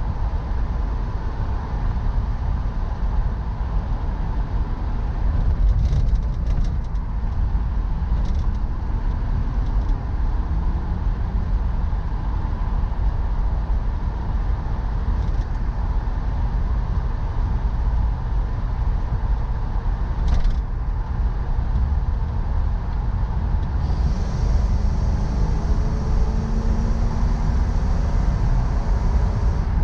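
1972 Buick Gran Sport's 350 V8 running as the car is driven: a steady low rumble with road noise, its pitch rising as it accelerates around ten seconds in and again near the end. The exhaust note is not loud.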